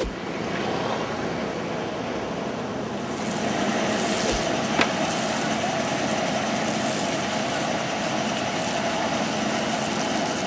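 A vehicle engine idling steadily amid outdoor street noise, with one sharp click about halfway through.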